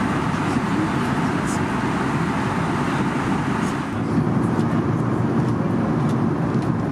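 Steady rushing cabin noise of an Airbus A320 in flight: airflow and engine noise heard from inside the passenger cabin. It gets a little louder about four seconds in, and a few faint clicks sound over it.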